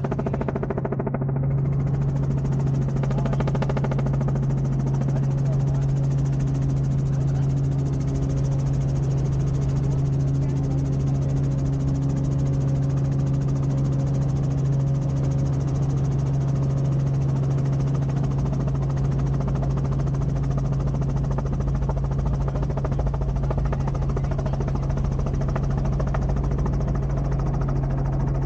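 Helicopter running: a steady engine and rotor drone with a strong, constant low hum.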